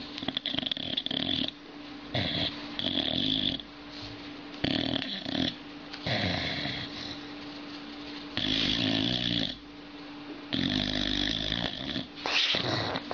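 Boxer dog snoring in its sleep, with about six rattly breaths spaced every second or two.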